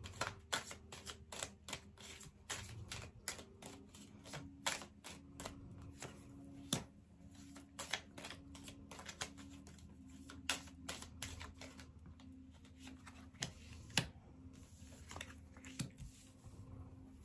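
A deck of fortune-telling cards being shuffled and handled by hand: a quick, irregular run of light card snaps and taps, a few a second.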